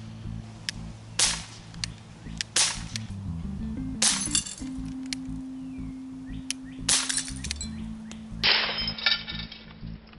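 CO2 semi-automatic air pistol fired repeatedly in sharp cracks, about half a dozen loud shots at irregular intervals. Several are followed by a short metallic clink and ringing, about 4 s in and 8.5 s in. Faint background music runs underneath.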